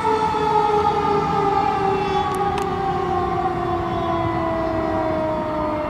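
Fire engine siren winding down, its pitch falling slowly and steadily. It has the long coast-down of a mechanical siren.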